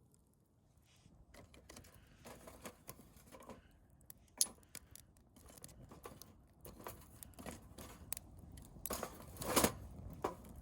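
Small objects being handled: scattered clicks, light knocks and rustling, with a louder stretch of scraping or rustling near the end.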